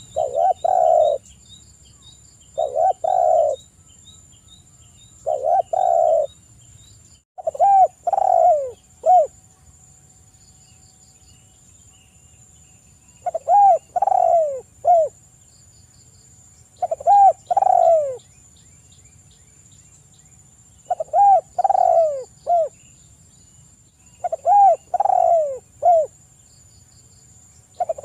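Spotted dove (tekukur) cooing in repeated phrases every three to four seconds, two coos per phrase at first and then the three-note 'kuk 3' pattern ending in a short falling note. Faint high chirps from small birds and a steady high insect drone are behind it.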